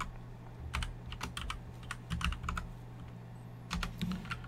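Computer keyboard typing: keystrokes in a few short bursts with pauses between them.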